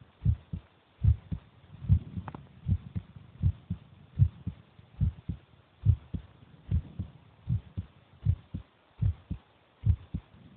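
A person's heartbeat: steady paired low thumps (lub-dub) at about 75 beats a minute over a faint hiss.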